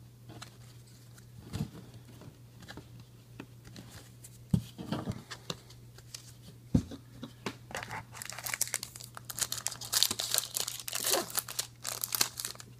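Trading cards being shuffled and set down with light clicks and taps. About two-thirds of the way through, a foil trading-card pack wrapper starts crinkling and tearing open, with a dense, loud crackle.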